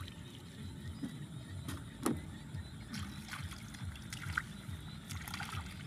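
Muddy water in a shallow puddle splashing and sloshing as hands and bare feet move through it to catch fish by hand, with a few sharper splashes among the uneven sloshing.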